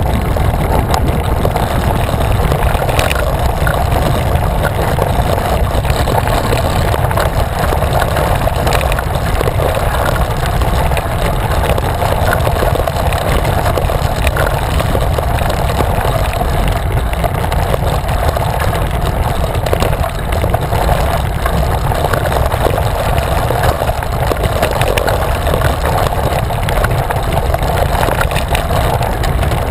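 Steady wind rush and low rumble on the microphone of a handlebar-mounted camera on a moving road bike.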